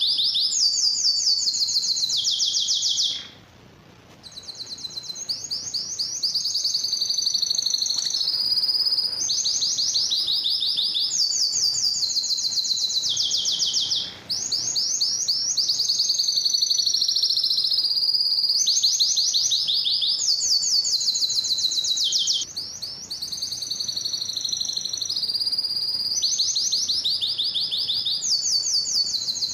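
Male domestic canary singing a long, continuous song of rapid trilled rolls, each roll held a second or two before it jumps to a higher or lower pitch. There is a short pause about three seconds in and brief breaks twice later.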